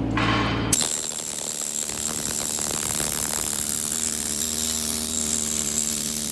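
Flux-cored arc welding: the arc strikes just under a second in and then crackles and sizzles steadily, after a brief humming tone.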